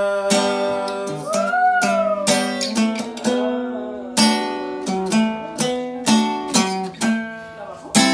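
Acoustic guitar played solo: a rhythmic pattern of strummed chords with picked single notes between the strokes.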